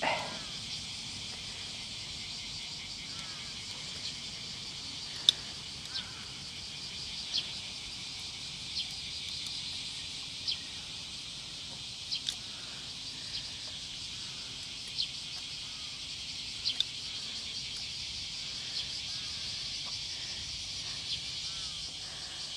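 Steady high-pitched insect chorus of a summer day, with a dozen or so brief sharp ticks scattered through it, the sharpest about five seconds in.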